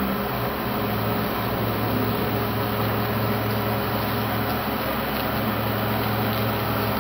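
CNC router spindle running steadily as its bit carves a block of PVC foam board, a constant hum with an even hiss.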